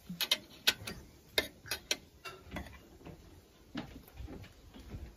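Metal serving spoon clinking and scraping against a plate and a serving dish as salad is spooned out: a string of light, irregular clicks and taps.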